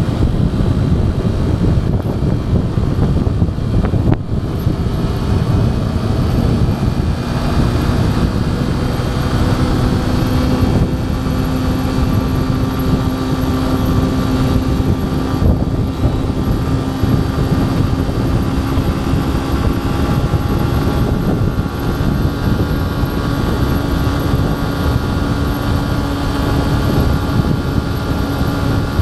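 Yamaha FZ 2.0's single-cylinder engine running steadily at cruising speed under way, with heavy wind rush over the microphone. The engine holds a steady pitch, with a brief dip in loudness about four seconds in.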